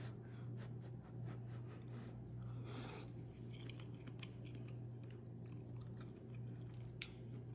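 Close-miked chewing of food, with many small wet mouth clicks and a brief louder noisy burst about three seconds in, over a steady low hum.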